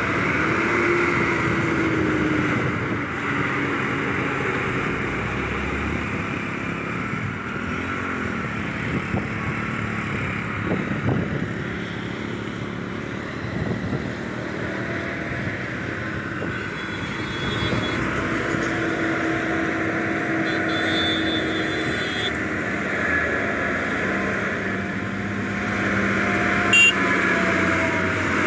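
Highway traffic driving past close by: loaded diesel goods trucks, a motorcycle and smaller vehicles, their engine notes slowly rising and falling as each one passes, over steady tyre noise. A short sharp sound stands out near the end.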